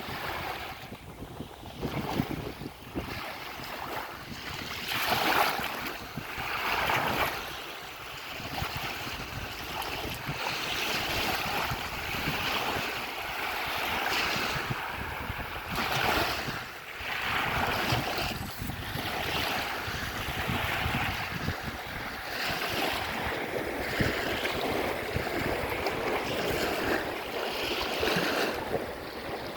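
Waves breaking and washing onto a shore in strong wind, with wind rumbling on the microphone; the surf swells and eases every few seconds.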